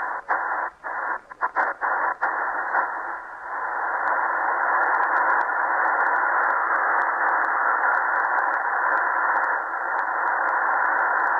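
Portable shortwave radio's speaker giving a steady hiss of band static on the 20-metre amateur band in sideband mode. The sound cuts out briefly several times in the first few seconds, the muting 'chuffing' of this digitally tuned radio as its tuning knob steps, then runs on as continuous static.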